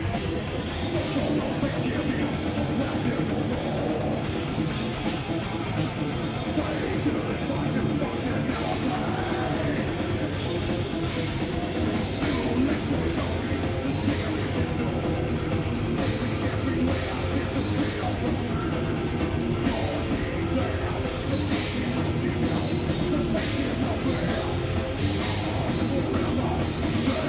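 Live heavy metal band playing: distorted electric guitars over a drum kit, loud and continuous.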